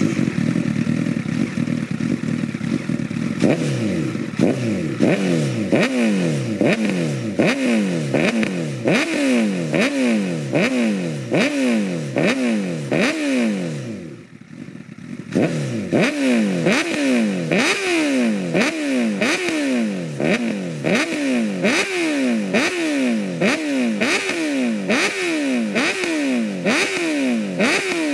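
Honda CBR1000RR inline-four engine through an SC-Project oval muffler with no dB killer, revved hard in repeated quick throttle blips. It runs fairly steadily for the first few seconds, then is blipped about once a second, each rev falling back quickly, with a short lull near the middle.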